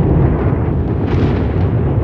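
Thunder rolling: a loud, continuous low rumble, with a faint crackle coming in about a second in.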